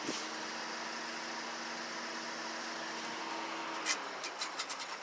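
Steady hum of a running air-conditioner condensing unit, carrying two steady low tones that stop about four seconds in. It is followed by a quick run of clicks and taps near the end.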